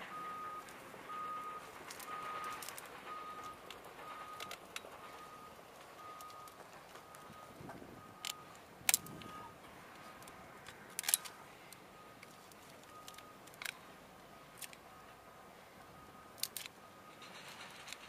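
Loppers cutting through dry cane and brush, each cut giving a sharp snap or crack, several times and irregularly, the loudest about halfway through. A faint high beep repeats steadily in the background and dies away about two-thirds of the way in.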